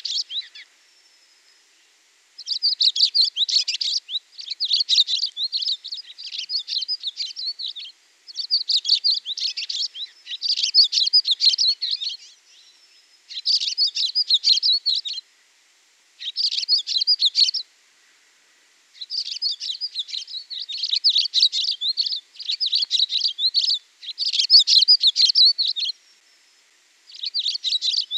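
Songbird singing: phrases of rapid, high chirps and trills, each a second or two long, repeated after short pauses.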